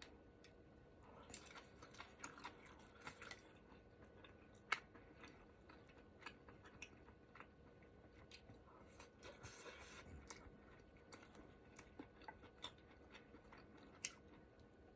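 Faint close-up chewing and mouth sounds of someone eating ramen hot pot, with scattered small clicks throughout. A sharp click a little under five seconds in is the loudest sound.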